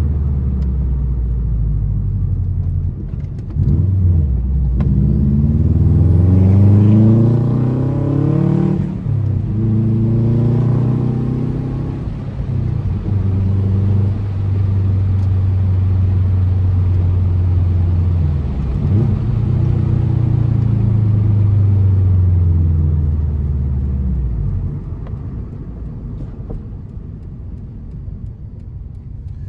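2004 Subaru WRX's turbocharged EJ flat-four engine rumbling through an Invidia exhaust while driving. The engine note rises in pitch as it accelerates, drops at a gear change, holds steady at cruise, climbs again, then falls away and quietens near the end as the car eases off.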